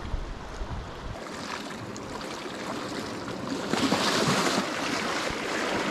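Sea water washing and surging over the rocks at the water's edge, with a louder surge about four seconds in. Wind rumbles on the microphone during the first second.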